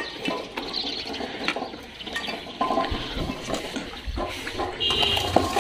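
A large dog eating soaked food from a steel bowl, with wet slurping and chewing and a few short clicks.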